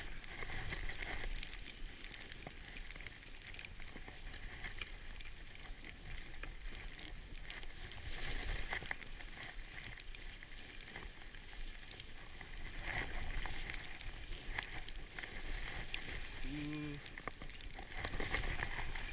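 Skis sliding and scraping over snow: a steady noisy rush with scattered crackles.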